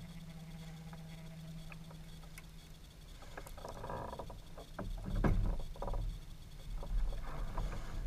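Knocks, clicks and low thumps of gear being handled against a fishing kayak's hull, loudest around the middle of the stretch. A low steady hum runs underneath for the first three seconds, then fades.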